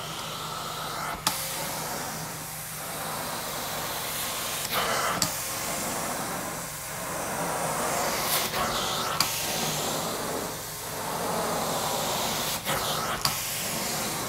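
Carpet steam-cleaning extraction wand running, its suction and spray making a steady loud hiss as it is worked over the carpet. The hiss rises and falls about every four seconds, with sharp clicks, mostly in pairs, at about the same pace.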